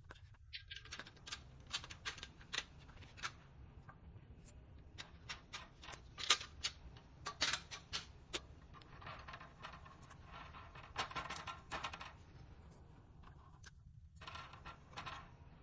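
Irregular clicks and light taps of hands and tools working on a Fire-Lite BG-12L fire alarm pull station as it is installed, with a few seconds of scraping about nine seconds in.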